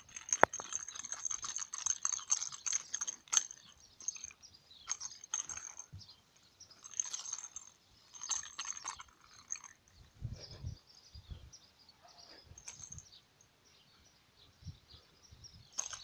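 Wrapping paper crinkling and crackling in bursts as a cat bites and carries a small wrapped present. The crackling is densest in the first few seconds and thins out after about ten seconds.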